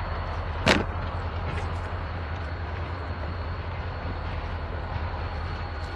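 Diesel locomotive moving slowly through the yard, its engine giving a steady low rumble, with one sharp clank under a second in.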